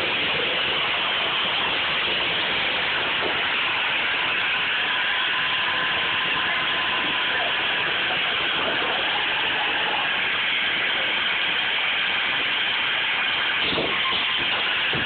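A steady, even hiss-like noise with a faint mechanical quality, with a couple of brief knocks near the end.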